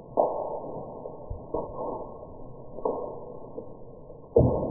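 Airsoft BBs zipping past, with the sound slowed to a tenth of normal speed, so everything is deep and muffled. Four sudden hits about one and a half seconds apart, each fading out, the last the loudest near the end.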